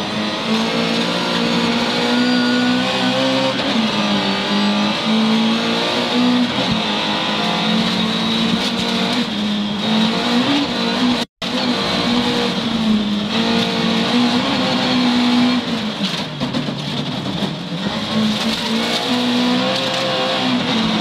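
Volvo 940 rally car's engine heard from inside the cabin, running hard through the gears on gravel. Its note climbs and breaks again and again, over a steady hiss of gravel and road noise. The sound drops out for an instant about halfway through.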